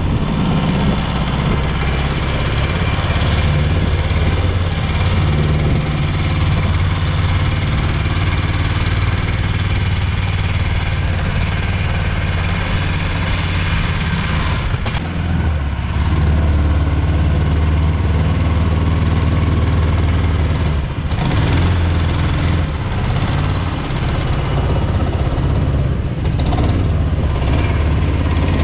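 Predator gas engine driving a Mud-Skipper long-tail mud motor, running steadily at a constant speed.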